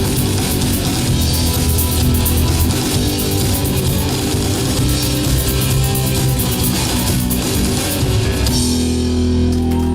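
Live rock band playing, with electric guitar and drum kit, and ending on a held chord that rings out in the last second or so.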